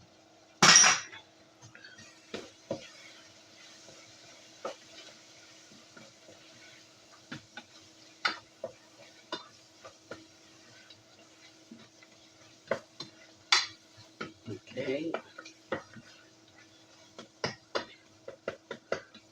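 A utensil stirring and scraping in a frying pan of tomatoes and spices, with scattered knocks and clinks against the pan and a loud clank about a second in. Faint sizzling and a steady low hum run underneath.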